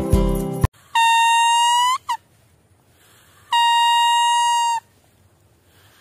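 Background music that cuts off about half a second in, then a rolled-leaf whistle blown in two separate notes of about a second each, steady at one pitch. The first note ends with a slight upward bend and a short squeak.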